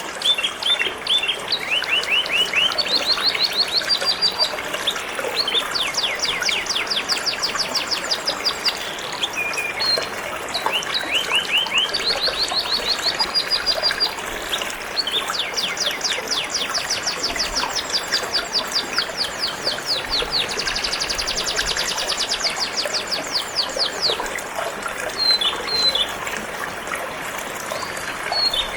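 Domestic canary singing long, rapid trills of repeated notes, phrase after phrase, over the steady sound of gently flowing, trickling water.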